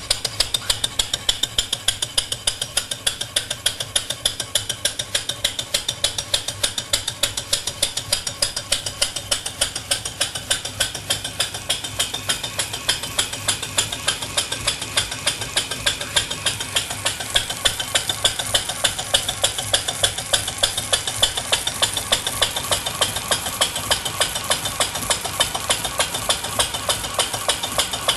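PM Research 6CI horizontal steam engine running steadily on compressed air, its exhaust puffing in a rapid, even beat while it drives a small generator under load.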